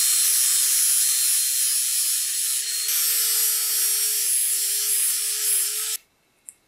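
Angle grinder's abrasive disc grinding a steel blade: a loud, steady hiss of grinding over the motor's whine, which steps up slightly in pitch about three seconds in. The sound cuts off suddenly about six seconds in.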